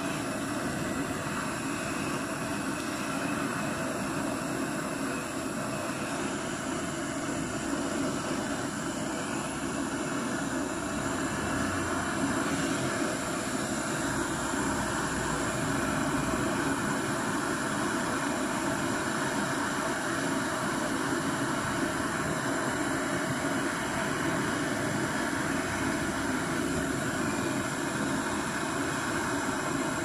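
Gas brazing torch burning with a steady hiss while it heats the copper joint between a refrigerator filter drier and its capillary tube for brazing.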